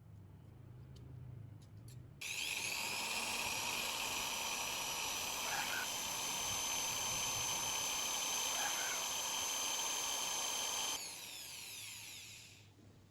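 A small high-speed electric power tool spins up about two seconds in, runs with a steady high-pitched whine for about nine seconds, then winds down.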